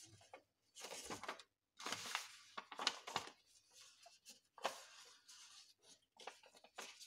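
A sheet of paper rustling and crinkling in several short bursts as hands fold and crease it.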